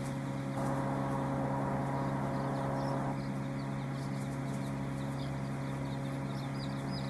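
Many young chicks peeping throughout, high and short, over a steady low machine hum. A soft rushing noise joins in for a couple of seconds about half a second in.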